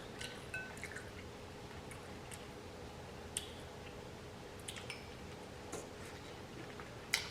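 A person eating buttery shrimp with close-miked mouth sounds: soft, wet chewing and lip smacks with scattered small clicks, the sharpest near the end.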